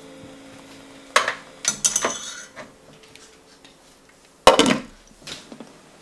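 Kitchenware clinking and knocking on a stainless steel pan: a few light clinks about a second in, then a single louder knock with a short ring about four and a half seconds in.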